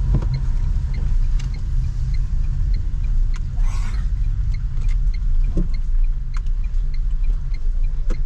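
Road traffic in heavy rain: a steady low rumble of vehicles, with a brief hiss about three and a half seconds in.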